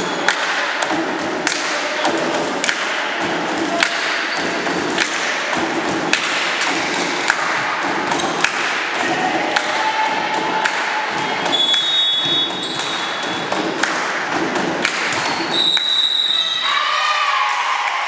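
Volleyball spectators in a sports hall keep up a steady thumping beat about once a second over a din of voices. A whistle sounds briefly a little past halfway and again near the end.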